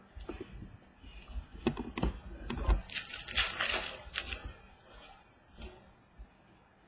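Trading cards and a foil pack wrapper being handled at close range: scattered clicks and taps, with a rustle lasting about a second around three seconds in, then quieter.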